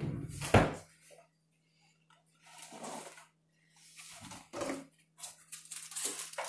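Kitchen handling noises over a faint steady hum: one sharp knock about half a second in, then scattered soft scrapes and rustles as a wooden spoon works butter in a frying pan and a box of aluminium foil is handled.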